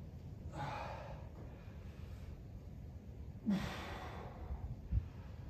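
A person exhaling hard twice, about three seconds apart, breathing with the exertion of a kettlebell exercise set. A soft low thump comes near the end.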